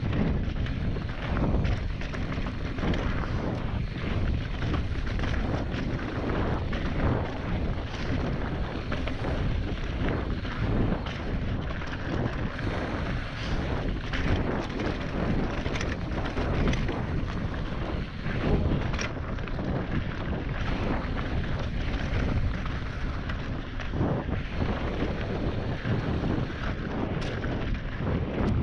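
Mountain bike descending a rocky trail at speed: wind buffeting the microphone over the rattle of the bike and tyres, with frequent knocks as the wheels hit stones.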